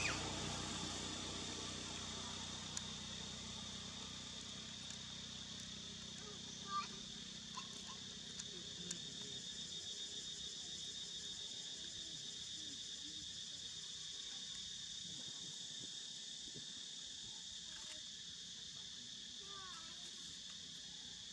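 Steady high-pitched drone of an insect chorus, with a few faint short chirps and several sharp ticks, the loudest a little under seven seconds in.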